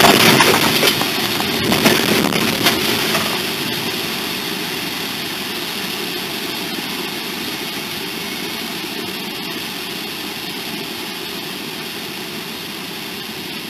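A loud rushing noise with a few knocks fades over the first four seconds and settles into a steady engine-like drone.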